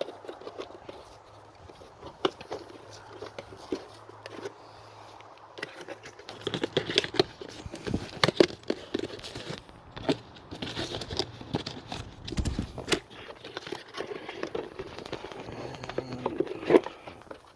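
Packaging and parts of a gauge kit being handled and unpacked: irregular rustling and crinkling with scattered small clicks and knocks, busier from about six seconds in.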